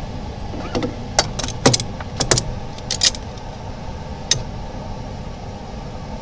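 Sharp clicks and light knocks of small parts and tools being handled on a workbench, over a steady low hum. The clicks come in a quick cluster during the first three seconds, with one more about four seconds in.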